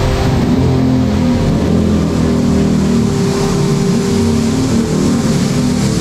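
Pressure washer running steadily, its pump motor humming under the hiss of the water jet as it sprays.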